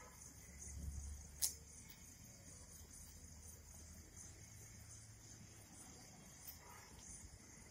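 Crickets chirring, a faint, steady high pulsing, with one sharp click about a second and a half in.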